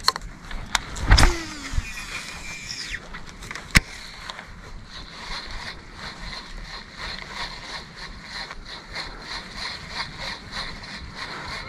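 A cast with a baitcasting rod and reel: the rod swishes, and the spool whirs as line pays out, falling in pitch over about two seconds. A sharp click comes near four seconds in, then a steady, finely ticking whir as the reel is cranked to retrieve the lure.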